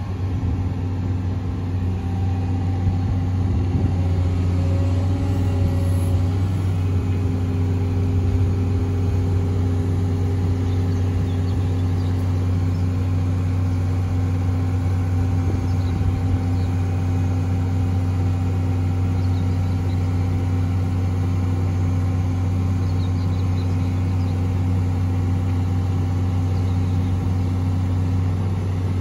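CAT M318D wheeled excavator's diesel engine running steadily at a constant speed as its hydraulics raise the high-rise cab.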